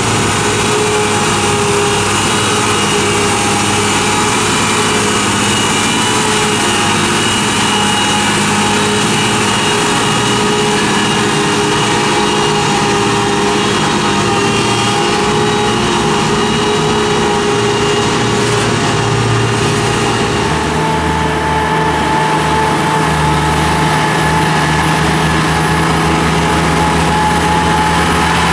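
UD Quester GKE 280 truck's GH8E diesel engine running at a steady speed. About twenty seconds in, the sound changes abruptly to a UD Quester GWE 370's GH11E diesel, also running steadily.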